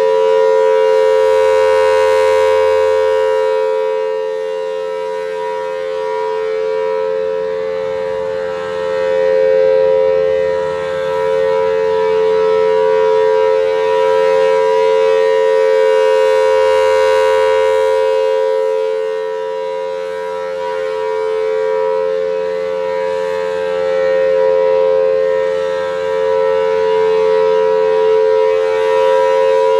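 Federal Signal Thunderbolt 1000T outdoor warning siren sounding a loud, steady two-note alert tone, rising and falling in loudness every several seconds as the rotating head sweeps around. The tone wavers a little: the siren is starting to get pitchy and wobble with age.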